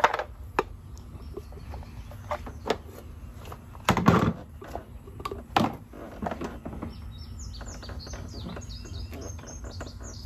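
Irregular plastic clicks and knocks from handling the suction tube and fittings of a hand-pumped vacuum oil extractor, with a louder knock about four seconds in. From about seven seconds on, a bird chirps in a quick run of short high notes.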